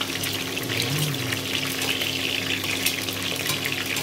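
Pork cubes frying in hot oil in a deep pot: a steady sizzle thick with small crackling pops, as the pieces are turned over with tongs. A steady low hum runs underneath.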